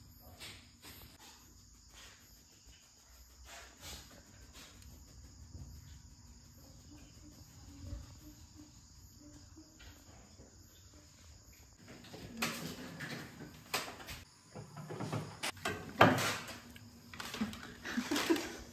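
Faint, steady high-pitched insect chirring, then from about twelve seconds in a series of sharp knocks and clatters, the loudest a little after that.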